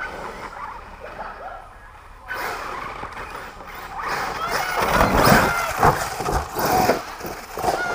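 Radio-controlled monster trucks driving on a dirt track, their motors whining and gliding up and down in pitch. About five to six seconds in come heavy thuds as a truck lands and tumbles.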